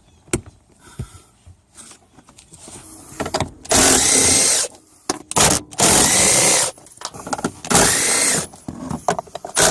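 Cordless power drill/driver spinning in three bursts of about a second each, its motor whine rising as it spins up, while taking out a fastener.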